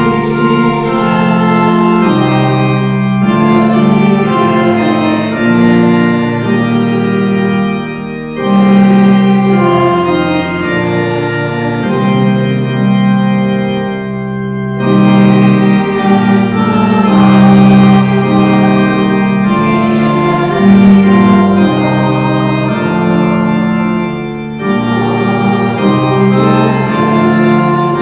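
Church organ playing a hymn tune in sustained chords, phrase by phrase, with short breaks between phrases about every six to ten seconds.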